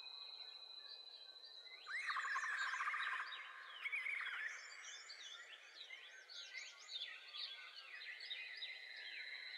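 Bird-filled nature ambience: many short chirps and whistles, with a rapid trilling call about two seconds in that lasts about a second, over a faint steady high tone.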